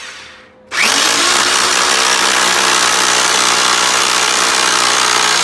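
Hammer drill with a 3/16-inch bit drilling screw holes into the floor under a toilet flange. It falls silent for a moment, starts again just under a second in with a quick rise in pitch, then runs steadily.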